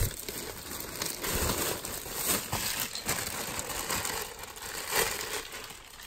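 Plastic bags rustling and crinkling unevenly as hands dig through them.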